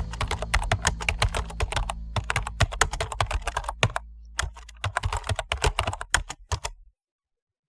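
Rapid, irregular clicking over a low steady hum, thinning briefly about four seconds in, then cutting off suddenly near the end.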